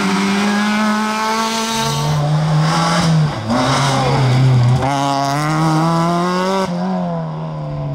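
Peugeot 206 rally car engine driven hard, its note climbing in pitch and then dropping sharply several times at gear changes and lifts.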